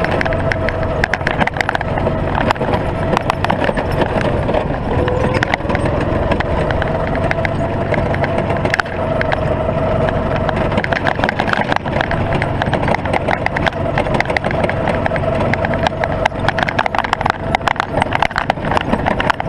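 Go-kart engine running steadily under way, its pitch climbing about five seconds in, over a constant rapid clatter from the loosely mounted GoPro rattling against the kart.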